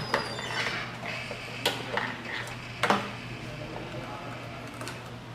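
Motorcycle fuel filler cap being shut and locked: a few sharp metallic clicks, two stronger ones about a second and a half and three seconds in, over a steady low hum.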